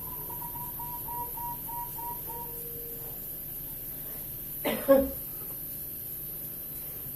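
A person coughs about four and a half seconds in: a small cough followed straight away by a louder one. Earlier, a faint series of short high pips repeats about three times a second for a couple of seconds.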